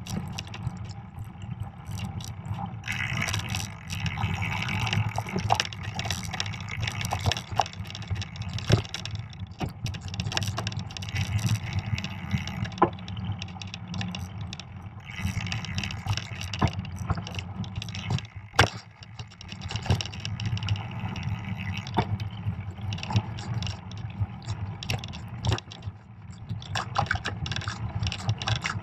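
Fat bike riding over a snow-packed trail: the wide tyres rolling over snow under a steady low rumble, with frequent clicks, knocks and rattles as the bike jolts over bumps.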